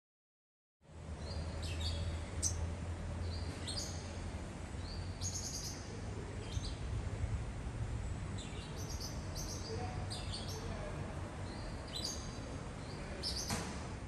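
Olive-backed sunbird calling: short, high, thin chirps repeated about once a second, now and then two in quick succession, over a steady low background rumble.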